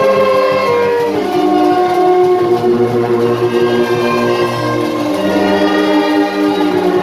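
A brass band of tubas, euphoniums and trumpets playing, holding long chords that change every second or two over a sustained low bass line.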